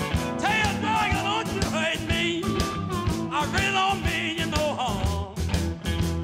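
Blues band recording with a steady beat and a bending lead melody line over bass and drums.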